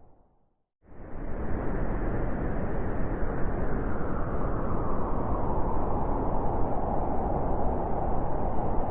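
Blizzard wind noise that fades to silence at the very start, then comes back abruptly about a second in and blows steadily. A brighter, higher band of rushing wind grows stronger toward the end.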